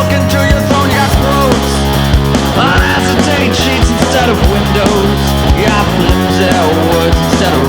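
Rock music, an instrumental passage with guitar over a steady drum beat.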